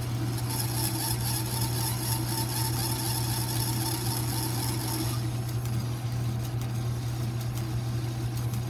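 South Bend 9A metal lathe running, its four-jaw chuck spinning while a cutting tool turns a brass bar held off-centre. A steady motor hum runs under a high hiss that drops away about five seconds in.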